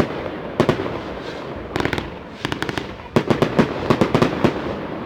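Fireworks display: sharp bangs and crackling reports going off in quick volleys. A close run of them comes in the second half.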